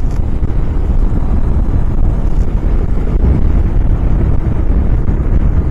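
Steady wind rush buffeting the microphone of a camera on a motorcycle riding at highway speed, mixed with low road and engine rumble.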